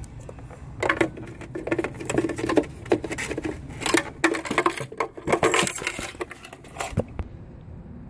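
Quick plastic clicks, taps and rattles in irregular clusters as a 2011 Jeep Patriot's hard plastic tail light assembly is handled, dying down about seven seconds in.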